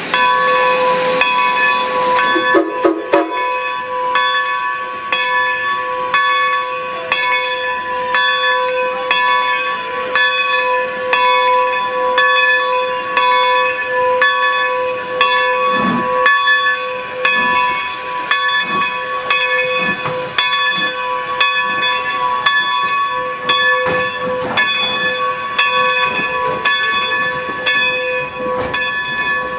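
Bell of Baldwin 2-10-0 Decapod steam locomotive No. 90 ringing steadily, struck again and again at an even pace, over a hiss of steam, as the locomotive gets ready to start.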